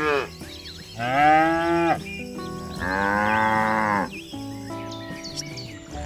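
A cow mooing twice, each moo about a second long, the first the louder, over background music.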